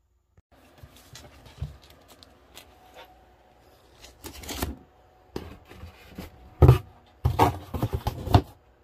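Stiff white cardboard sheets handled over a cardboard box: irregular rustling and scraping of card, with a run of sharp knocks and slaps that are loudest in the last two seconds or so.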